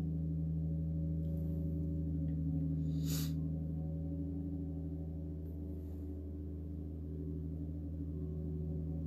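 A steady low background hum made of several fixed tones, with a short soft rustle about three seconds in.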